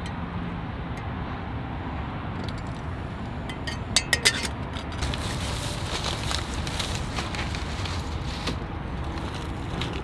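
Backpacking canister stove burning steadily under a pot of water, a constant gas hiss. A few sharp clicks about four seconds in, from the pot being handled.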